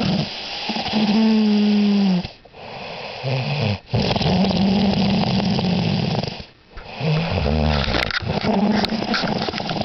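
A dog snoring loudly: four long snores in a row, each a steady low drone lasting one to two seconds, with short breaks between them.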